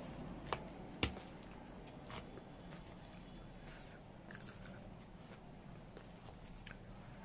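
A few quiet clicks and taps from a plastic spoon against a plate and crisp pani puri shells as the shells are filled with potato stuffing. One sharper click comes about a second in.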